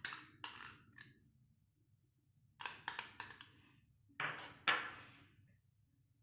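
A spoon scraping and knocking against a non-stick kadhai as spoonfuls of solid ghee are put into the hot pan. The short clattering sounds come in three clusters: at the start, about two and a half seconds in, and around four seconds in.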